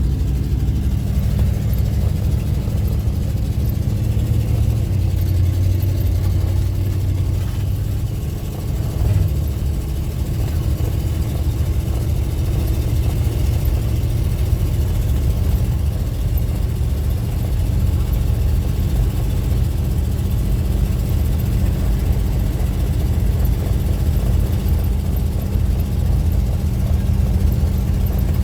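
Car driving along a road: steady low engine and road rumble heard from inside the cabin.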